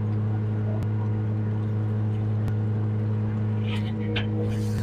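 Sumitomo SH210 amphibious excavator's diesel engine running steadily at a constant speed, heard from inside the operator's cab as the machine travels through water on its pontoons. A few short hissing noises come near the end.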